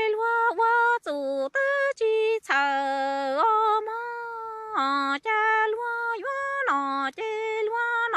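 A woman singing kwv txhiaj, Hmong sung poetry, unaccompanied. She sings short phrases of high held notes, several of which drop to a lower note.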